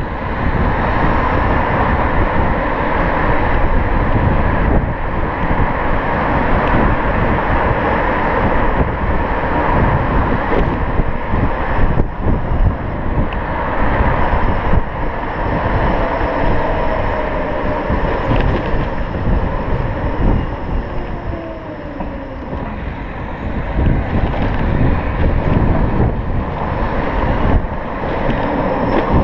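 Electric scooter riding along a town road: steady wind rush on the microphone with tyre and road noise, easing briefly a little past the middle.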